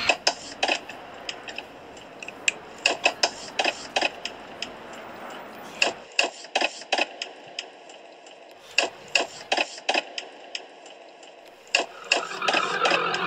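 An irregular series of sharp clicks and knocks over a faint hiss, with music coming in near the end.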